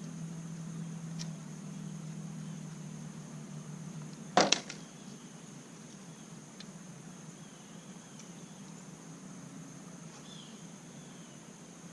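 A sharp double knock about four seconds in, over a low steady hum that fades out and a faint steady high whine.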